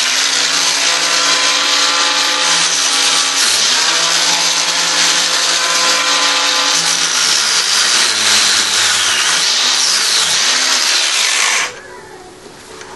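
Angle grinder with a thin cutting disc running at full speed and cutting into a steel rod. The motor pitch sags briefly about three and a half seconds in and wavers under load from about eight to ten seconds in, then the noise stops near the end.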